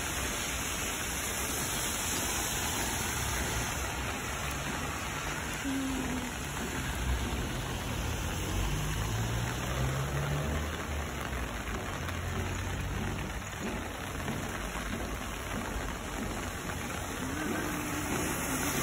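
Steady rain falling on pavement, an even hiss throughout, with a low rumble swelling and fading in the middle.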